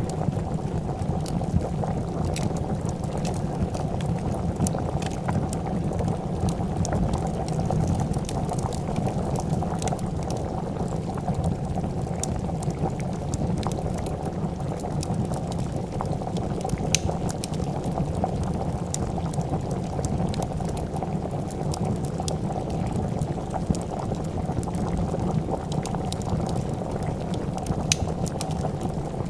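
Pot of soup bubbling at a steady boil, with scattered sharp crackles and pops from a wood fire.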